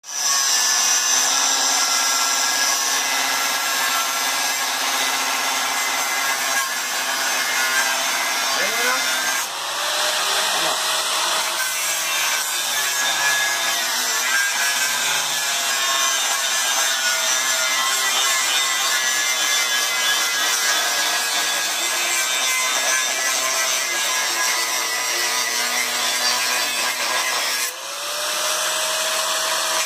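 Handheld angle grinder cutting steel with an abrasive disc, a continuous loud grinding whine. Twice, about nine seconds in and near the end, the noise briefly drops and the motor's pitch climbs back up as the load on the disc changes.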